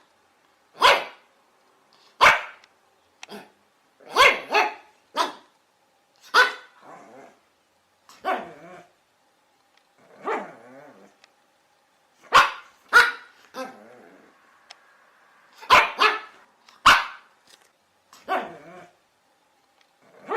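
Chihuahua barking in sharp, high yaps at irregular intervals, about one every second or two. A few of the barks trail off into a lower, rougher sound.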